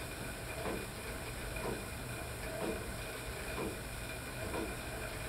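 Stationary cycle ergometer being pedalled at a steady pace: a continuous whirring hiss with a rhythmic swish about once a second.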